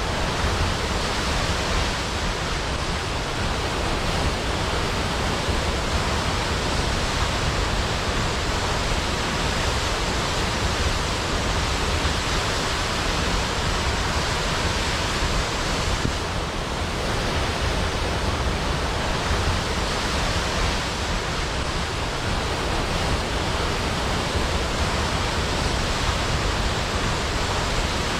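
Large waterfall plunging into a pool: a steady, even rush of falling water with no breaks.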